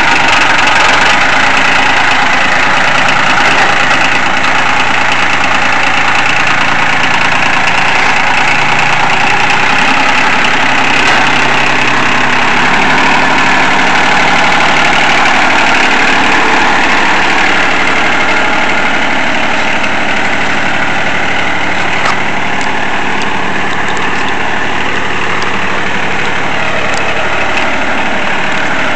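1977 John Deere 950's 27-horsepower three-cylinder Yanmar diesel running steadily as the tractor drives off, growing a little fainter in the second half.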